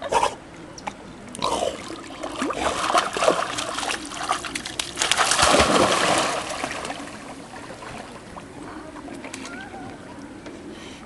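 Pit bull splashing through shallow lake water as it wades ashore with the ball and then plunges back in. The splashing is loudest about halfway through, then gives way to softer lapping as the dog swims off.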